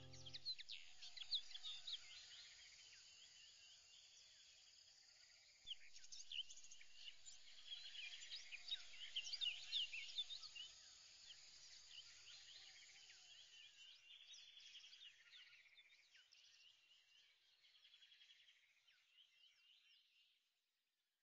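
Faint birdsong: many short chirps and whistles, busiest in the middle, thinning and fading out near the end.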